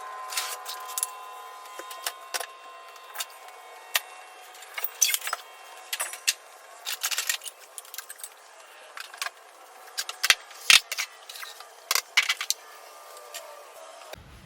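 Irregular clatter of sharp clinks and knocks as things are picked up and moved about, clearing space in front of a crawl-space access panel.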